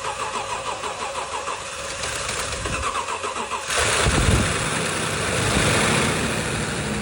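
Freshly rebuilt Lexus LX570 5.7-litre V8 engine being cranked by the starter with a steady rhythmic churn. It catches at about three and a half seconds in, flares up loudly for a moment, then settles into a steady idle. This is its first start after the rebuild.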